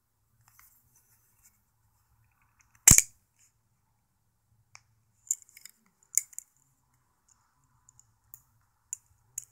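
Balisong (butterfly knife) being handled: one sharp click about three seconds in, then a scatter of lighter clicks and taps of the handles and latch.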